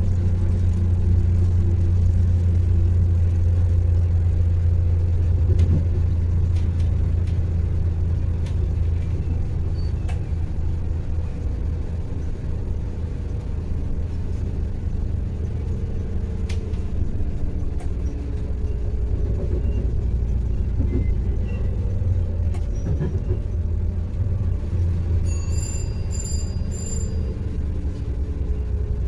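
Cabin sound of an Alstom LINT diesel multiple unit under way: a steady low diesel drone and rail rumble, with the engine note shifting in pitch now and then and scattered light clicks from the track. A few short high beeps sound near the end.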